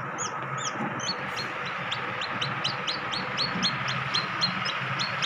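A newly hatched chick peeping inside a homemade incubator: rapid, repeated high peeps, about four to five a second, over a steady background hum.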